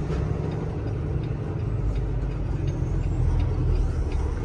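Steady low rumble of a 2020 Peterbilt semi truck's diesel engine and drivetrain, heard from inside the cab while the truck is rolling at low speed.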